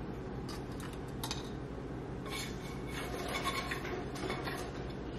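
Faint scrapes and light clinks of a utensil on a pan and plates as breakfast is dished up, over a low steady hum.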